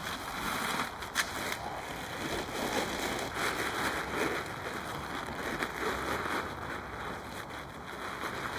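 Dry leaves and twigs on a woodland floor rustling and crunching as the ground is cleared, with a sharp snap about a second in.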